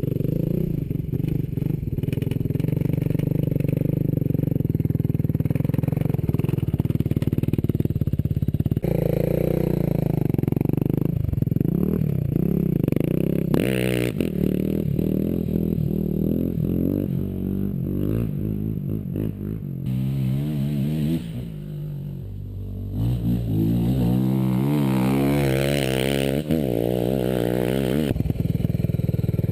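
Suzuki LT-R450 sport quad's single-cylinder four-stroke engine revving hard on a dirt track. Its pitch climbs and drops again and again as the rider opens and closes the throttle.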